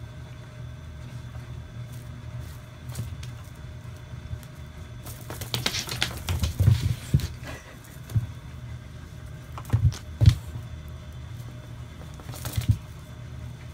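Cat scuffling and batting at a feather wand toy on a wooden floor: a flurry of scrabbling about halfway through, then a few sharp thumps, over a steady low hum.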